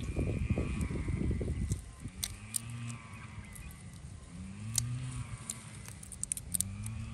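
Shrimp being rinsed and peeled by hand in a metal basin of water, with small splashes and clicks of the shells. Underneath is a low rumble for the first two seconds, then a low drawn-out sound that rises and falls three times.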